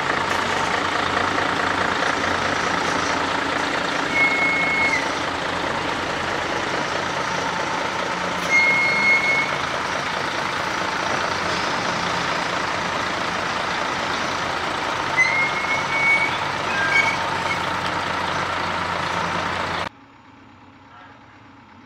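Diesel engine of a Unimog truck running steadily while it tows and positions a trailer, with a few short high-pitched tones now and then. The sound drops away abruptly near the end.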